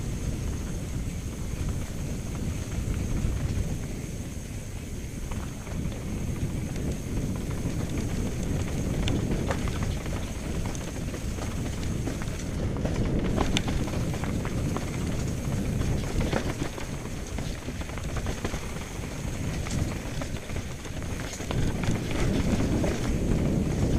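Mountain bike descending a rocky dirt trail: a continuous rumble of tyres over stones and roots, with rattling and wind on the helmet microphone, and occasional sharper knocks from hits on rocks, several around the middle.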